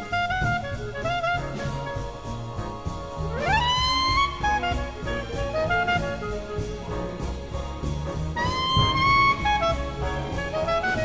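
Background jazz music with horns over a steady beat; twice, about three and eight seconds in, a horn slides up into a held note.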